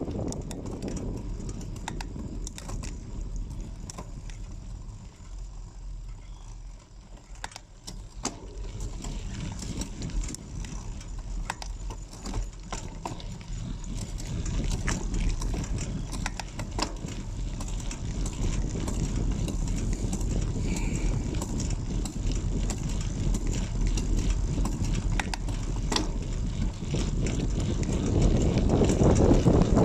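Bicycle coasting down a wet mountain road: wind rumbling on the microphone and tyre noise, with scattered sharp clicks and rattles from the bike. The rumble dips for a few seconds, then builds and is loudest near the end as the speed picks up.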